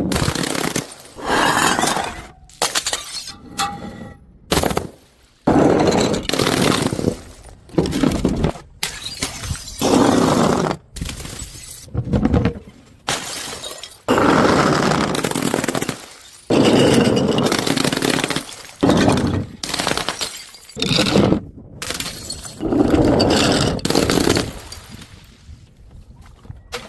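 Glass bottles shattering one after another, each a sudden loud crash that trails off, repeating every second or two.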